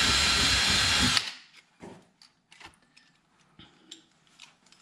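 Cordless drill running with a high whine as it bores a rivet hole up into the car's plastic underbody panel, then stopping abruptly about a second in. A few faint clicks and taps follow.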